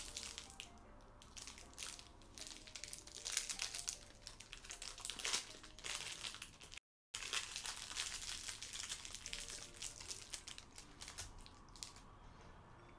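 Plastic wrapper of a Grenade Carb Killer protein bar crinkling as it is unwrapped by hand, in short, irregular rustles. A brief gap of silence comes about seven seconds in, and the rustling dies down near the end.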